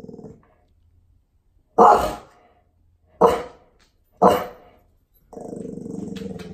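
A dog growling low, then barking three times, loud and about a second apart, then growling steadily again near the end: a territorial warning at something outside.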